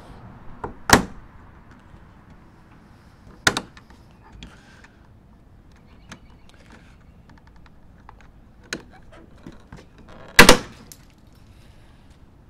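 Plastic retaining clips of the lower headlight trim on a Ram 2500 snapping loose as the trim is pried off with a plastic pry tool. There are sharp snaps about a second in, at about three and a half seconds and near nine seconds, then the loudest double snap near ten and a half seconds, with faint ticks and scrapes between. The trim is pulled off hard, but the clips come out unbroken.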